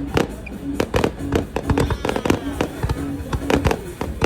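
Fireworks going off in rapid, irregular succession: many sharp bangs and crackles several times a second, with music playing underneath.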